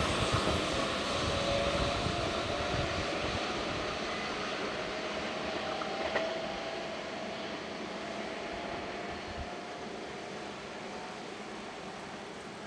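Keihan 7000 series electric train pulling away, its running noise fading steadily as it recedes, with a faint whine that slowly drops in pitch. One sharp click about six seconds in.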